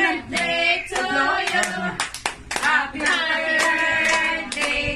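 A small group of voices singing a birthday song together, with hands clapping along.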